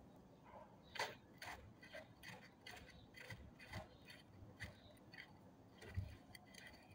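A run of light, irregular metallic clicks and taps, roughly two a second, as bolts and parts of a starter motor are fitted by hand; the sharpest clicks come about a second in and near the end.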